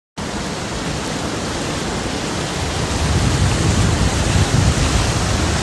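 Muddy flash-flood water rushing over the ground: a loud, steady rush of noise that grows louder about halfway through.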